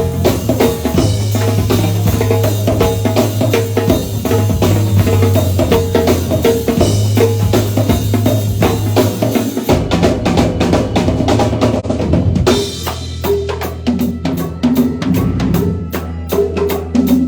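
Live band music driven by a drum kit with a steady beat over a sustained bass line. About ten seconds in the cymbal wash drops away and the drum strokes stand out on their own.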